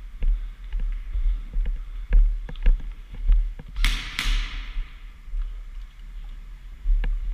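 Two sharp airsoft gun shots in quick succession about four seconds in, each trailing off in an echo, among scattered small knocks and clicks over a low rumble.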